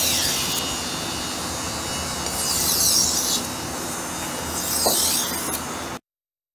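Kitchen knife blade being pushed back and forth across a wet whetstone: a gritty scraping rub that swells with each of about three strokes, then cuts off suddenly near the end.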